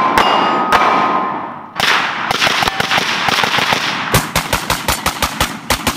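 Full-auto Glock 19 in a KPOS carbine kit firing 9mm in rapid bursts. After the first burst, hit steel targets ring. From about four seconds in there is a long string of evenly spaced shots.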